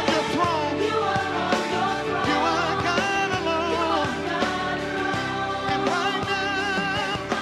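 Gospel worship music: a sung melody with wavering, ornamented lines over a band with a steady beat.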